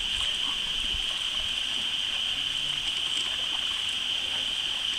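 Steady high-pitched hiss, with small waves lapping against a stony lakeshore.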